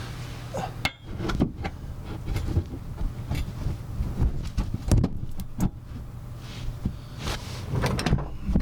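A work light being handled and set in place under the SUV, with irregular clunks, knocks and clatters about once a second over a steady low hum.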